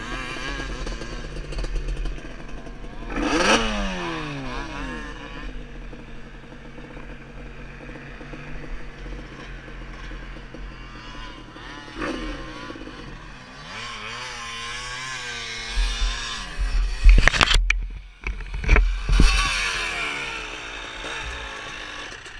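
Sport quad (ATV) engine running as it is ridden over sand, its pitch rising and falling with the throttle, heard through a helmet-mounted camera. Several loud knocks and rattles come in a cluster about three-quarters of the way through.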